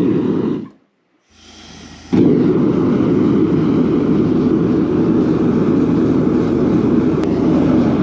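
Gas forge burner being lit: a short rush of flame, a brief break, then a low hum and a softer hiss before the burner catches at about two seconds and runs with a loud, steady rushing roar of burning gas.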